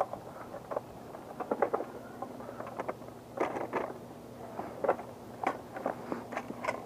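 Irregular small clicks and rattles, like hard plastic gear being handled, over a faint steady hum.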